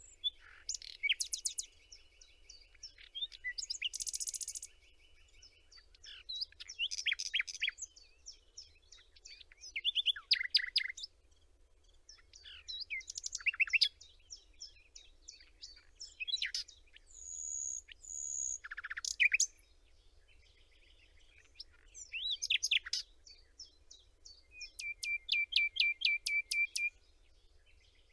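Songbirds singing: short phrases of rapid chirps and trills every few seconds, including a long, even trill near the end.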